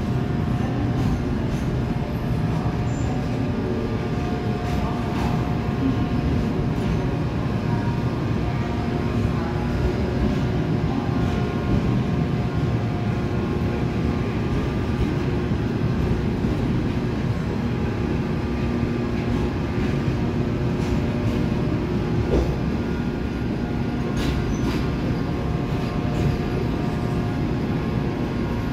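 Passenger coaches rolling slowly past as a train pulls out: a steady rumble of wheels and running gear on the rails, with faint hums and a few scattered clicks.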